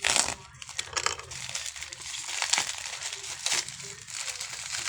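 Plastic packaging crinkling and rustling in irregular bursts as a parcel is handled and opened by hand, loudest right at the start.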